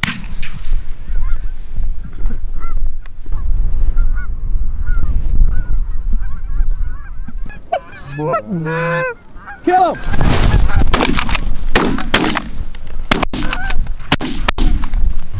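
A flock of Canada geese honking overhead, with a louder burst of close honks about eight seconds in. After that, gusty wind noise rumbles on the microphone, with several sharp knocks near the end.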